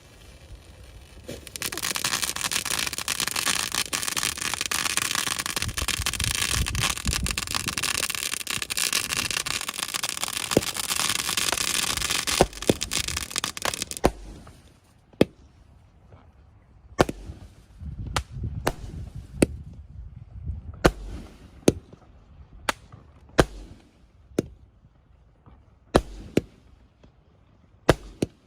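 Nico Pyro Conversion consumer firework going off: about twelve seconds of dense hissing, crackling, then a string of single sharp bangs at roughly one-second intervals.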